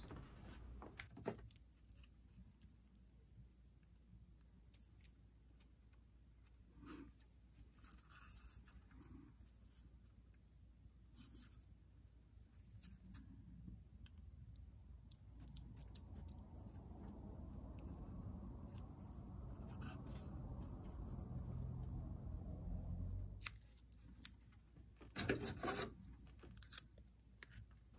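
Faint handwork sounds of fine wiring: scattered small clicks and a soft rustle as wire ends are fastened into a small circuit board's screw terminals with a small screwdriver. A few sharper clicks come near the end as a roll of double-sided foam tape is handled.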